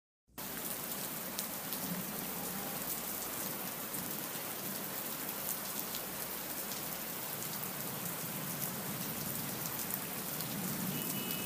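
Rain falling: a steady hiss with scattered small drop ticks.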